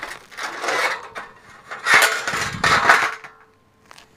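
Scuffing footsteps on an asphalt-shingle roof in two bursts of about a second each, with a few light metallic clinks.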